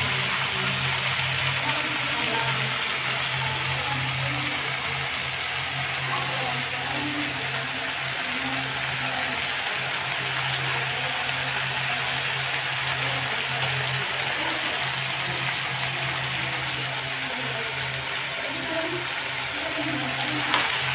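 Prawns, taro stolons and mixed vegetables sizzling steadily as they fry in a pan, over a steady low hum.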